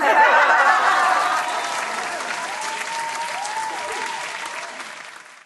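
Applause with cheering, starting abruptly and fading out near the end.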